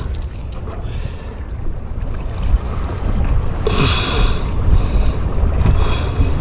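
Wind buffeting the microphone, a steady low rumble, with a brief higher-pitched sound about four seconds in.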